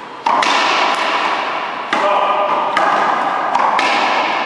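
One-wall racquetball rally: the ball struck by racquets and hitting the wall, four sharp hits roughly a second apart, each ringing on in the hall.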